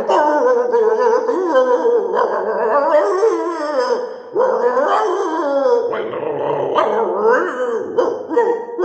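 A man imitating a dog with his voice: drawn-out whining and howling dog sounds that waver up and down in pitch. The sounds run almost without a break, apart from a short pause about four seconds in.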